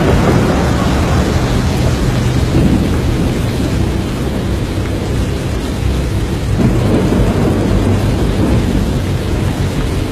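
Loud storm noise: a steady deep rumble of wind with a rain-like hiss, swelling again about six and a half seconds in.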